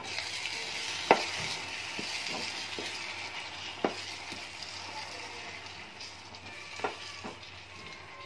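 A wooden spatula stirs whole small brinjals through thick masala gravy in a pot over a steady sizzle of frying. The spatula knocks against the pot a few times, sharpest about a second in.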